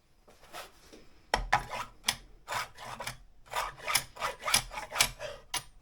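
Router parts being handled and rubbed against each other: a quick series of short scraping strokes, about two a second, starting about a second and a half in.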